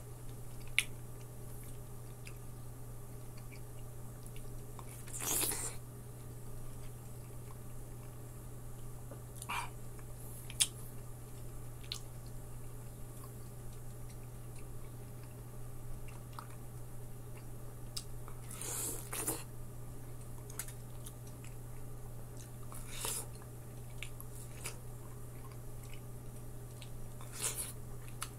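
Close-up biting and chewing of juicy slices of orange-fleshed melon, with wet bites and mouth sounds scattered every few seconds and longer, louder ones about five seconds in and again near nineteen seconds. A steady low hum sits underneath throughout.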